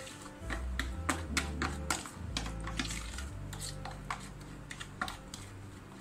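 Metal spoon stirring a thick yogurt marinade in a plastic container, clicking and scraping against the container's sides and bottom in quick, irregular strokes.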